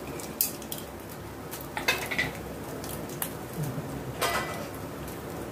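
Several sharp metal clinks and knocks of a utensil against a metal kadai, spaced irregularly, over a low steady background noise.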